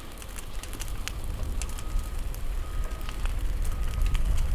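A structure fire burning close by, crackling with scattered sharp pops and snaps over a steady low rumble.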